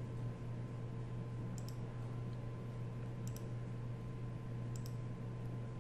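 A few faint computer mouse clicks, three short pairs spaced about a second and a half apart, over a steady low hum.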